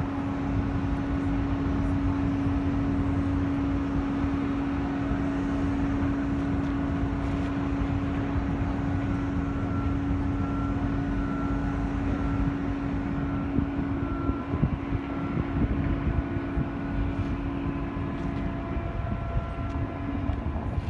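Boat engine running steadily, a constant droning hum over a low rumble; near the end the hum wavers and settles slightly higher.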